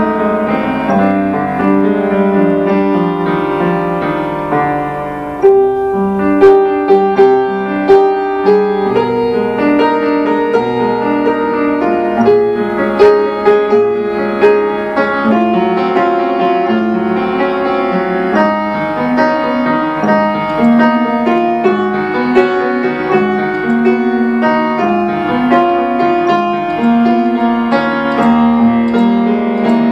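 Upright piano played solo, a melody over held chords; about five seconds in the playing gets louder, with more sharply struck notes.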